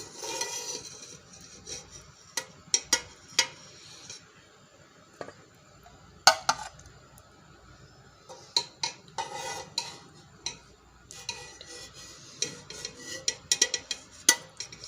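A metal spoon knocking and scraping against a cooking pot and a dish in irregular clinks, some ringing briefly, as boiled koftas are lifted out of the pressure cooker.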